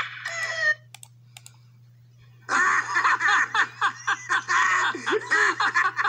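Cartoon soundtrack played through computer speakers with a steady low hum: a cartoon hyena's laughter cuts off after under a second. A few sharp clicks follow in the near-quiet, then about two and a half seconds in another animated clip starts with rapid, choppy sounds that break several times a second.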